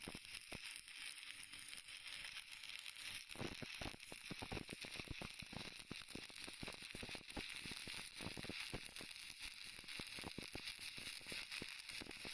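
Stick-welding arc with a 6013 electrode, crackling and sizzling steadily, with dense irregular pops that grow busier about three seconds in.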